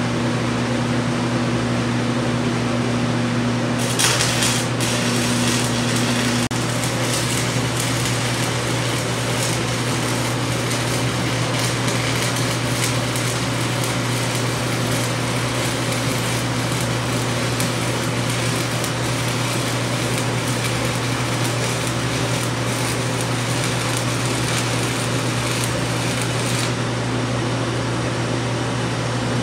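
Stick-welding arc from a 5/32-inch 7018 electrode on a Forney Easy Weld 180 ST DC welder at about 120 amps. The arc strikes about four seconds in, crackles steadily while the bead is run, and stops shortly before the end. Under it runs the steady hum of the shop ventilation fan.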